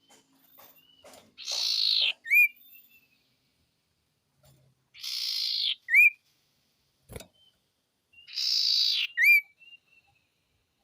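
A bird the uploader calls a sirtu, calling three times at even intervals. Each call is a harsh hissing burst about half a second long, ending in a short, sharp upward-curving whistle.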